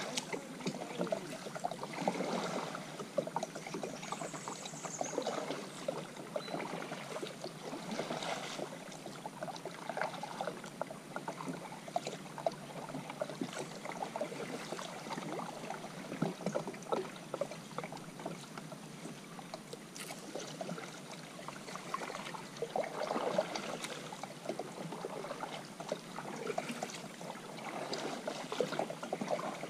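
Kayak paddle strokes in still floodwater: the blades dip and slosh, with water trickling and dripping off them, swelling now and then with a stronger stroke.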